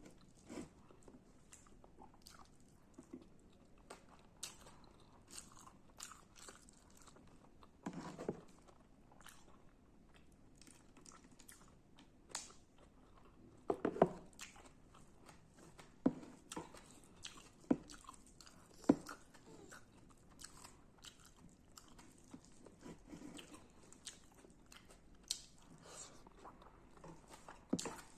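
A person eating radish and rice: irregular crunchy bites and chewing, with the sharpest crunches about halfway through.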